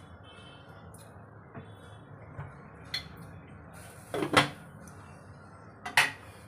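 Glass pan lid set onto a metal kadai, clinking sharply against the rim twice, about four seconds in and again near the end, after a few lighter taps. The pan of spinach gravy is being covered to bring it to a boil. A steady low background noise runs underneath.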